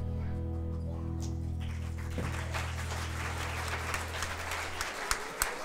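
A song's final chord held on steadily, then cut off near the end, while audience applause builds from about two seconds in.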